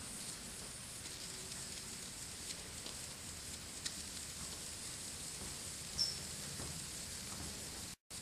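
Steady hissing and sizzling of steam escaping from the three jets of a small brass aeolipile (Hero's engine) boiler as it spins up under an alcohol lamp, with a few faint ticks. The sound cuts out briefly near the end.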